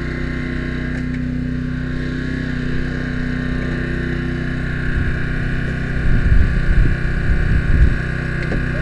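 Small gasoline engine of a hydraulic rescue-tool power unit running steadily at a constant speed. From about five to eight seconds in there is a stretch of heavy low rumbling and bumps.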